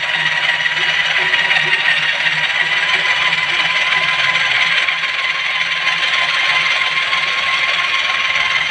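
Heavy electric drill running steadily with a whine as it turns a tool inside a tractor engine's cylinder liner to polish the bore.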